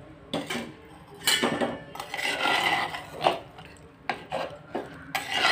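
Metal spoon stirring sweet rice and milk in a clay pot, scraping and clinking against the pot's sides in a string of irregular knocks.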